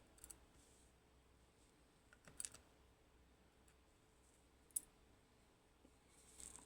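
Near silence broken by a few faint, small clicks from small metal lock pins being handled: a short cluster about two and a half seconds in and one sharper click near five seconds.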